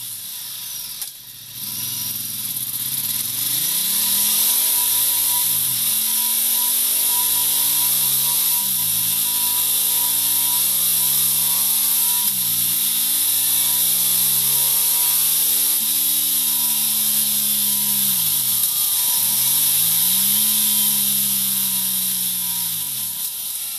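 Ducati Multistrada 1200's Testastretta V-twin running through a MIVV Speed Edge aftermarket exhaust, revving up and dropping back several times. The pitch climbs, falls off sharply, climbs again and holds steady in places.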